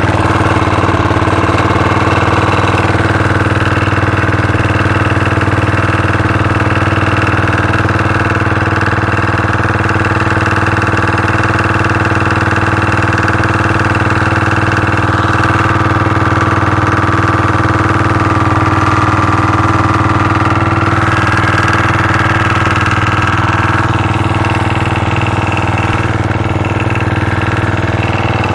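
Freshly rebuilt motorcycle engine running steadily at idle with the choke partly on, because it is starving for gas after having flooded.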